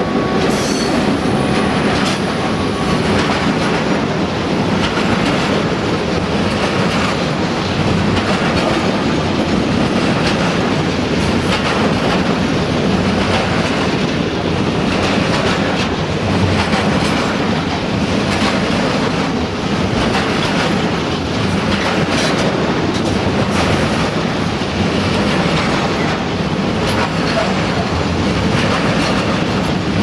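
Freight train wagons rolling past close by: a steady rumble of the train with wheels clacking irregularly over rail joints and the odd squeal from the wheels.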